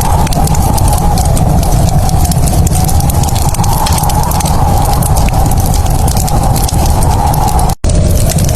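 Log fire crackling: scattered sharp pops and crackles over a steady low rumble. The sound cuts out for an instant near the end.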